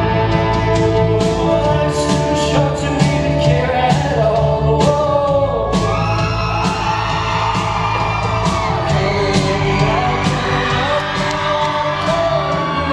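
A live band playing a rock song with drums keeping a steady beat and a voice singing the melody, most clearly in the second half, with occasional shouts from the crowd.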